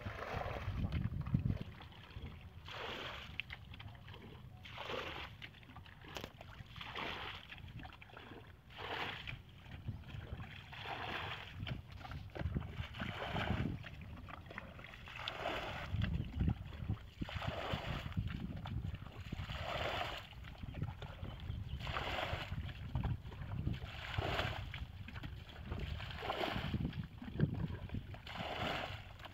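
Wind buffeting the microphone in uneven gusts, with water splashing from an emptied bucket at the start.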